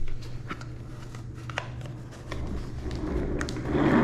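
Office chair parts being handled during assembly: a knock at the start, scattered small clicks, and a rustling swell near the end, over a steady low hum.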